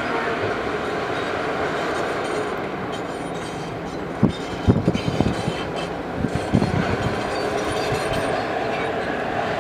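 Heavy earthmoving machine's engine running steadily, with a cluster of sharp metallic clanks about four to seven seconds in.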